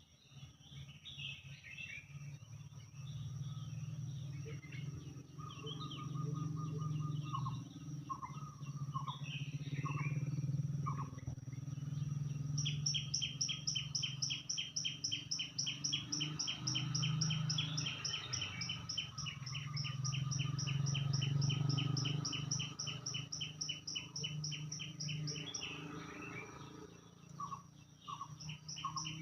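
Several birds calling and singing, with short chirps and whistled notes, and a long run of rapid repeated chirps through the middle. A steady high-pitched tone and a low hum run underneath.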